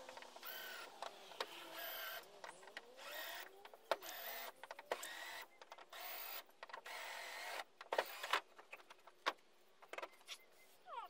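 Cordless drill run in a series of short bursts against the canoe's gunwale, the motor's pitch rising and falling with each squeeze of the trigger. Sharp clicks and knocks of the drill and wood are scattered in the later part.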